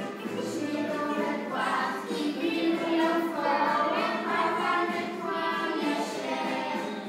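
A children's song: a choir of voices singing a melody over a musical backing, which the children dance to.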